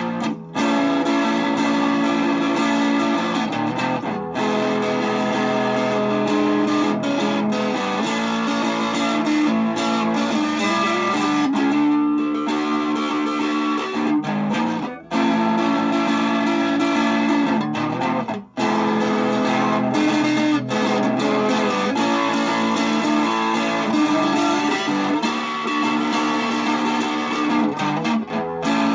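Guitar music, most likely electric guitar through effects, playing long held chords and notes. It breaks off briefly three times: just after the start, about halfway through, and a few seconds later.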